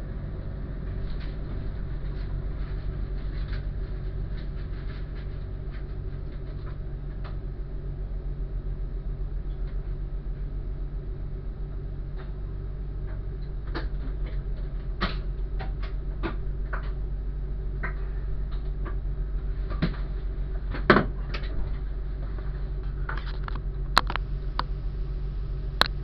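Train engine running with a steady low drone as the train moves slowly along the platform, heard from inside the cab, with scattered clicks and creaks that come more often in the second half, the sharpest about two-thirds of the way through.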